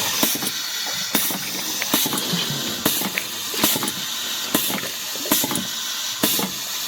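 Compressed-air-driven filling machine cycling on its own in automatic mode: a sharp pneumatic burst about every 0.85 s over a steady hissing run of air and machinery.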